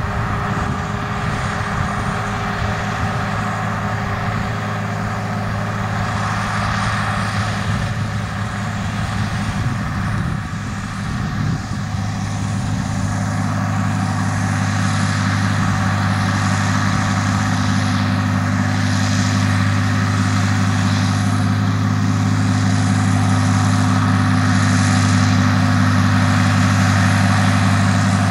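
Fiat 110-90 Turbo tractor's six-cylinder turbo diesel running steadily under load as it pulls a Krone silage wagon picking up grass. The engine grows steadily louder as the tractor comes closer.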